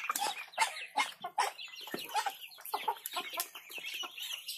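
Chickens clucking in a mixed flock of poultry, many short calls overlapping one another.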